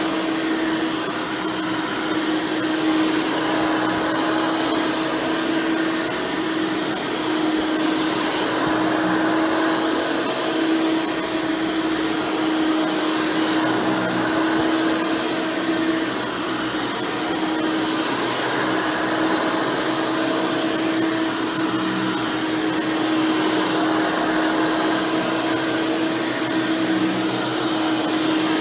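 Hoover Elite Supreme upright vacuum running steadily with its upgraded 20-blade fan motor and a single-row stiff-bristle brush roll: a continuous rush of air with a steady hum.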